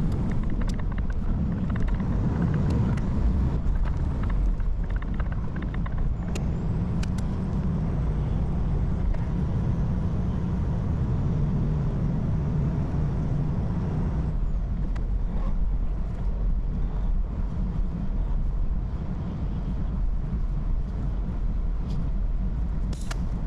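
Semi-truck driving on the highway: a steady engine and road rumble, with a few faint clicks.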